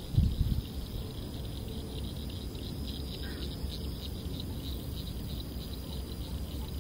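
Evening insect chorus of crickets: a steady high-pitched trill with a fine rapid pulse. A low rumble runs beneath it, with a brief bump at the very start.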